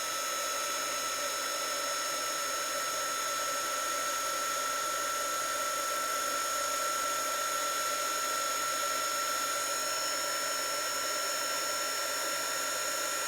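Craft heat tool (embossing heat gun) running steadily: fan noise with a constant high-pitched whine.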